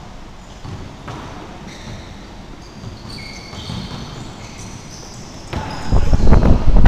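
Basketball bouncing on a wooden gym floor, with short high squeaks of sneakers and an echo from the hall. About five and a half seconds in, much louder, closer knocks and noise begin.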